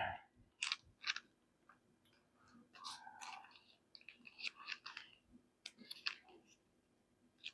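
Faint, scattered clicks and plastic crinkling of small parts being handled: the knob being fitted to the stainless steel lid of a gravity water filter.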